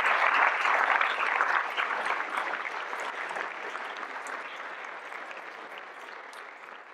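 Audience applauding, a dense patter of many hands clapping that fades steadily away over several seconds.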